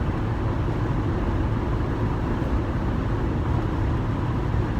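Steady low rumble of a running vehicle, even throughout with no distinct events.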